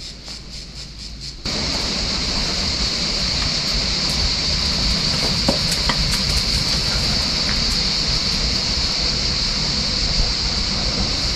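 Cicadas singing in a shrill chorus over a low rushing noise. The song pulses about four times a second, then about a second and a half in it switches abruptly to a louder, continuous drone.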